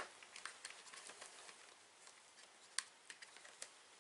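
Faint handling sounds: small clicks and rubbing as hands tug at a stubborn spark plug cap on a petrol multi tool's engine, with a sharper click just under three seconds in and another shortly after.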